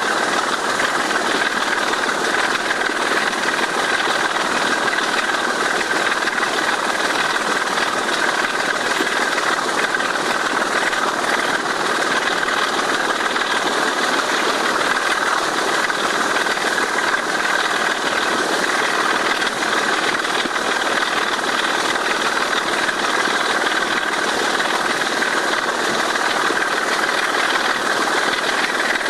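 BR Class 25 diesel D5217's Sulzer 6LDA28 six-cylinder engine working hard at full power, a steady loud thrash heard from a window of the moving train, mixed with rattle from the running train.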